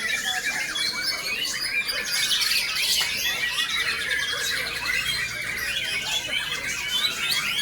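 White-rumped shama (murai batu) singing: a dense, rapid run of varied chirps, whistles and squawky notes, used as lure song to provoke a shama.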